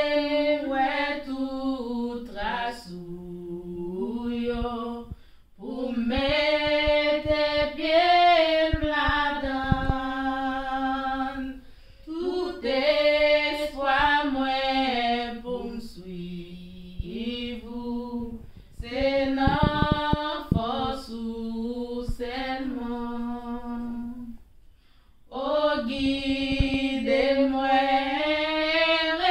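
Women's voices singing a worship hymn a cappella, in sung phrases of long held notes separated by short breaths.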